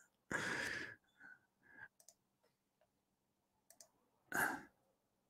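A man's breath into a close microphone: two short breathy exhales, the first near the start and a louder one about four seconds in. A few faint soft clicks fall between them.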